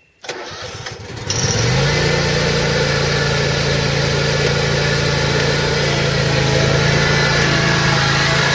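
Exmark Lazer Z zero-turn mower's Kohler Command 23-horsepower V-twin engine being started: the starter cranks for about a second, then the engine catches, its pitch rising briefly before it settles into a steady run.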